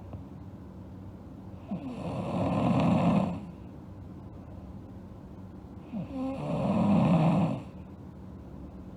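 A sleeping girl snoring: two snores about four seconds apart, each a rasping in-breath about a second and a half long that swells louder before stopping.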